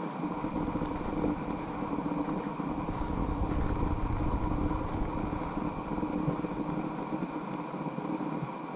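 Wind rumbling against an action camera's microphone while walking on a trail, over a steady faint hum.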